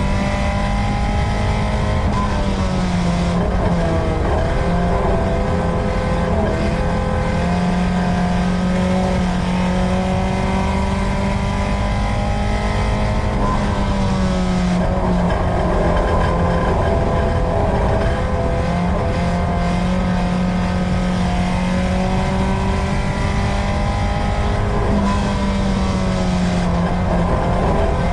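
Four-cylinder USRA Tuner race car's engine heard from inside the car, running hard at high revs. Its pitch dips and climbs back several times as the throttle is lifted and reapplied through the turns.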